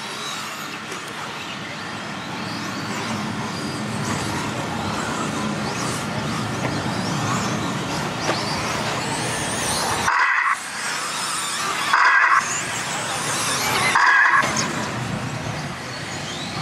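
1/10-scale RC truggies racing on a dirt track: a steady mix of motor whine rising and falling in pitch, with tyre noise. Near the end come three short, loud bursts about two seconds apart.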